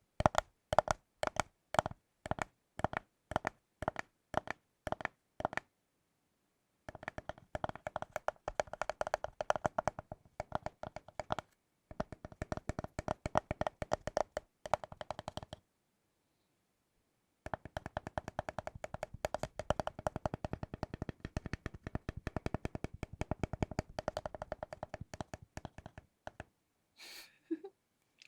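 Tapping on a thick bar of chocolate: even single taps at about two or three a second for the first few seconds, then, after a pause, three runs of fast, dense tapping separated by short gaps.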